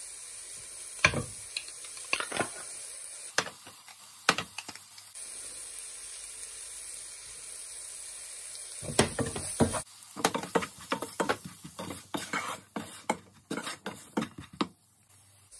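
Onions, curry leaves and chilli powder frying in a pan with a faint sizzle. A few sharp taps come in the first few seconds as the spice is spooned in. From about ten seconds in there is a rapid run of scrapes and knocks as a wooden spoon stirs the pan.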